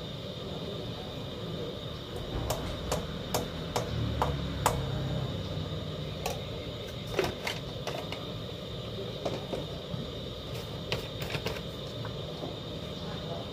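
Irregular light clicks and knocks of hands working with kitchen things at a counter, a few at a time with short gaps, over a faint steady high whine.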